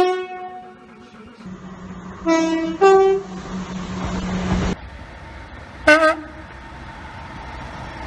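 Train horns in quick succession. A loud horn fades out over the first second. Then a Class 171 Turbostar diesel unit runs past with its engine drone and sounds a two-tone horn, low note then high. After a cut, another train gives one short horn blast over a steady hum.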